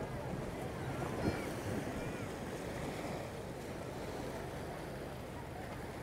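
Ocean surf washing onto a sandy beach, a steady rush of water.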